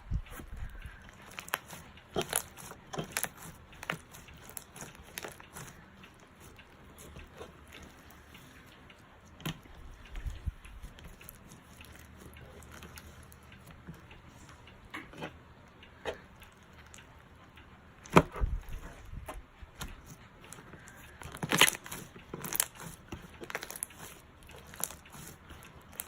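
Clear-glue slime with foam beads being squished and stretched by hand, giving scattered wet clicks, pops and crackles from air bubbles and beads, the loudest about two-thirds through and again a few seconds later.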